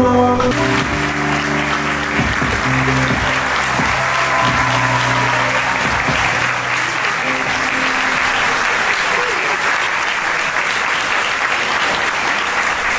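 Audience applauding steadily, over background music whose sustained notes fade out about halfway through.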